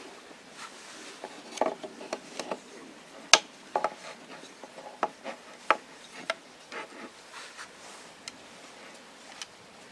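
Ash-wood frame saw being handled and fitted together: its wooden parts click, knock and rub in an irregular string of about a dozen small taps, the sharpest a little past three seconds in.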